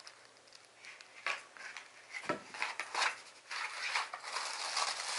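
Tissue paper rustling and crinkling in irregular bursts as a wrapped package is opened by hand, starting about a second in.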